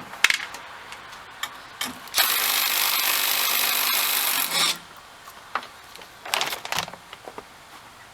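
Power drill running steadily for about two and a half seconds, spinning off a 7/16-inch nut that holds a billet grille insert, with a few short clicks and knocks of handling around it.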